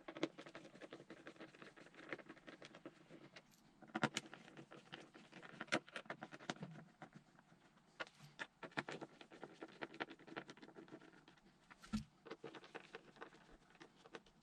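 Irregular small clicks and light metallic rattles of a T20 Torx driver undoing the air box cover screws on a motorcycle, with the loose screws being handled. A single dull knock comes about twelve seconds in.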